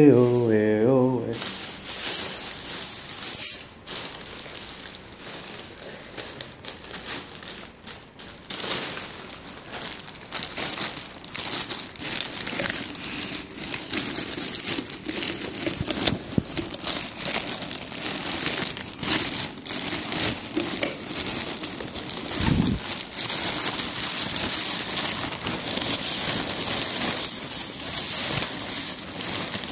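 Loud, continuous rustling and crinkling handling noise from a phone's microphone rubbing against clothing and cloth, dense with small crackles. It follows a brief sung 'wee-oh' from a man's voice at the very start.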